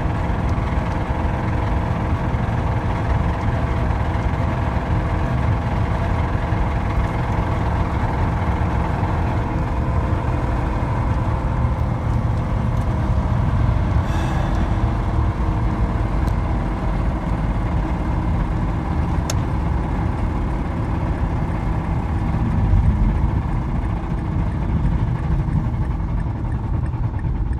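Mazda engine running with a heavy rod knock, the sign of a failing connecting-rod bearing. It runs steadily at a constant level throughout.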